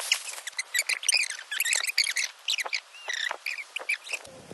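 Small songbirds chirping rapidly, many short high chirps and quick sweeping notes overlapping, with a sudden change in the background near the end.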